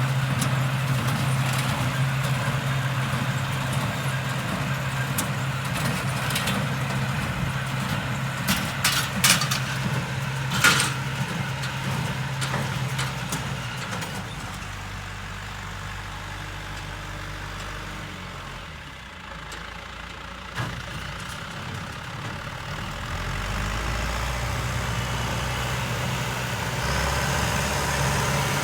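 Tractor engine running steadily during baling. Its note drops and changes about halfway through and picks up again near the end, and there are a few sharp knocks in the first half.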